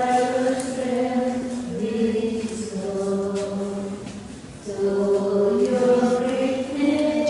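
Choir singing slow, chant-like lines of long held notes, with a short break between phrases a little past halfway.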